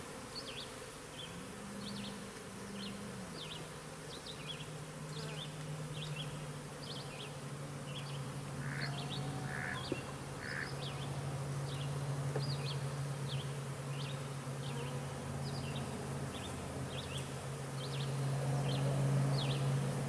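Honey bees buzzing around an opened hive: a steady low hum that grows louder toward the end. Short high chirps repeat faintly in the background.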